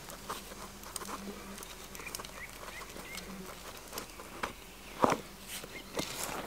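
A small hand gimlet is twisted into a green branch, making irregular wooden creaks, scrapes and clicks. The loudest come about five and six seconds in. A faint low buzz comes and goes.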